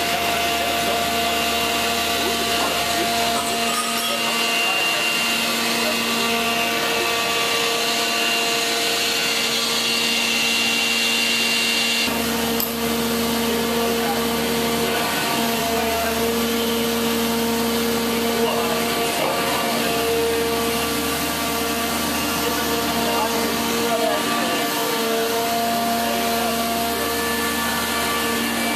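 Machinery running steadily: an even hiss under several constant humming and whining tones that fade in and out a little, without stopping.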